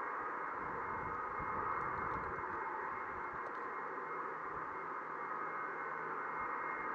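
Airbus A300-600ST Beluga's GE CF6 turbofan engines at taxi power, a steady jet whine over a hiss.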